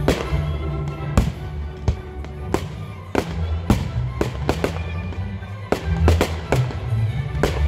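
Fireworks display: aerial shells bursting in a dozen or so sharp bangs at irregular intervals, over music with a heavy bass line.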